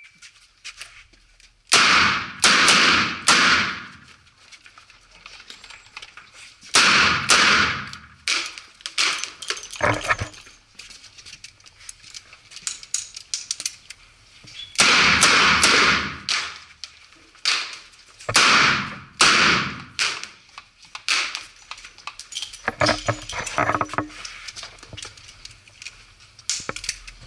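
Ruger GP100 revolver fired in quick strings of shots, each shot sharp and echoing off the walls of an indoor range. Five strings are separated by pauses filled with small metallic clicks of the revolver being reloaded.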